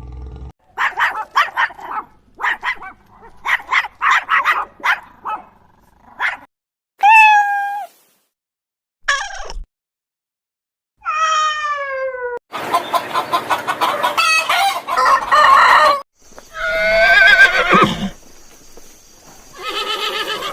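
Farm animal calls cut one after another: rapid, short chattering calls for the first six seconds, then separate bleats, several falling in pitch and one wavering, with a dense, noisy stretch of calls in the middle.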